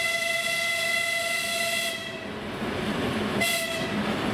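A 2TE116 diesel locomotive sounding its horn: one long blast of about two seconds, then a short one about a second later, over the rumble of the locomotive and its train rolling past.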